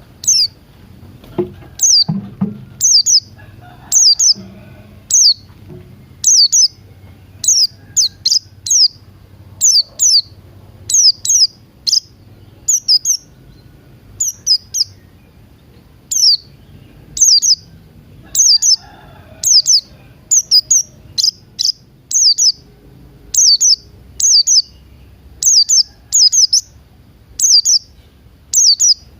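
Songbird chirping: a long, steady run of short, sharp, high chirps that sweep downward, often in quick pairs, about one or two a second.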